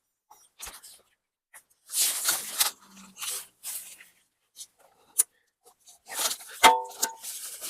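Scraping and rattling of the stump grinder's PTO driveline yoke being worked onto the tractor's splined PTO shaft, with a sharp click and then a loud ringing metal clank near the end.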